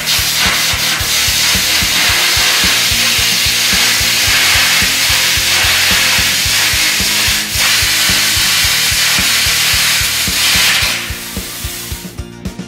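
Carbon arc air gouging: a loud, steady rushing hiss of the arc and compressed-air jet blowing molten steel out of the groove, with a brief break about seven seconds in, and cutting off about eleven seconds in. Background music with a steady beat runs underneath.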